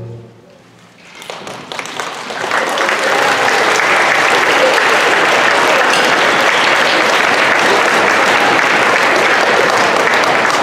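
Audience of schoolchildren applauding: scattered claps start about a second in and build within a couple of seconds into steady, dense applause.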